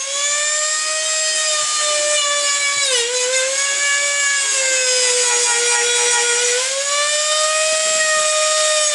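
Dremel rotary tool running at high speed with a high whine while cutting into a BMW E36 headlight housing. The pitch dips briefly about three seconds in, sags for a couple of seconds midway, then climbs back.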